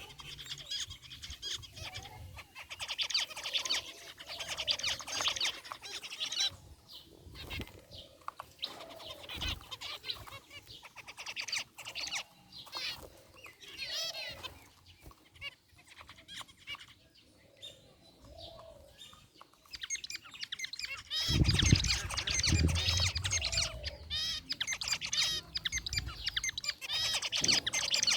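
A group of zebra finches chirping and calling, many short quick calls overlapping. About 21 seconds in the calling grows busier and louder, and a low rumble comes in for a few seconds.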